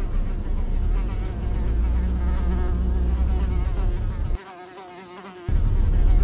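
An insect trapped inside the van buzzing at the windscreen, its buzz wavering up and down in pitch. Underneath is the steady low rumble of the van driving, which cuts out for about a second near the end while the buzzing carries on.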